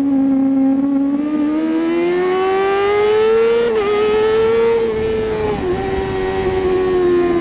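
Kawasaki ZX-6R 636 inline-four race engine heard onboard under hard acceleration out of a corner. Its pitch climbs for about three and a half seconds, drops sharply for a moment near the middle at a gear change, dips again about two seconds later, and then holds steady, over a steady rush of wind.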